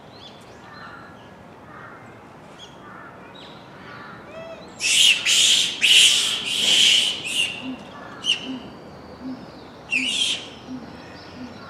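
Japanese macaques calling: faint calls at first, then a run of loud, high-pitched calls about five seconds in and another loud call about ten seconds in.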